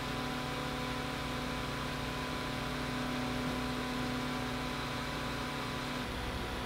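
A 120 mm PC radiator fan running steadily, a constant rush of air with a steady hum tone. About six seconds in, the tone changes as a different fan takes over.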